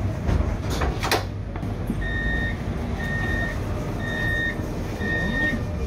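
CAF Urbos 3 tram's electronic warning beeper sounding four even, high beeps about a second apart, over the low hum of the tram. A few sharp knocks come before the beeps.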